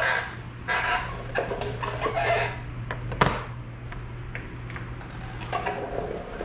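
Loose metal engine parts and hand tools clinking and clattering as the camshaft retainer plate and its bolts are removed from a Mopar small-block V8, with one sharp metallic knock about three seconds in, over a steady low hum.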